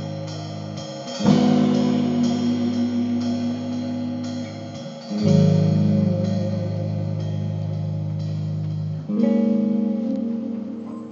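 Live band of electric guitar, electric bass and drum kit playing. Long held chords are struck about a second in, again around five seconds and again around nine seconds, each ringing on and fading slowly.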